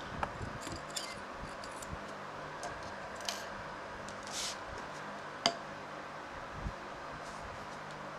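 Small scattered clicks and taps of a screwdriver and small metal carburetor parts against the carburetor body and a wooden table, with one sharper click about five and a half seconds in and a short scrape just before it, over a steady low background hum.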